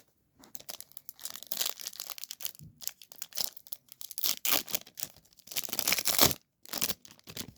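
A foil trading-card pack wrapper being torn open and crinkled: a run of crackling rips and crumples, with a brief pause a little after six seconds.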